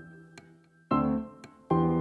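Background piano music: soft chords struck about a second in and again near the end, each fading away.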